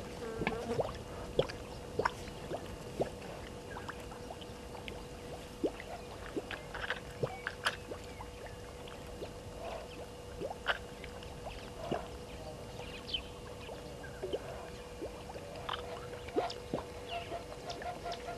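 Outdoor waterhole ambience: scattered short clicks and chirps over a steady faint hum. Near the end a rapid run of goose calls begins, Egyptian geese.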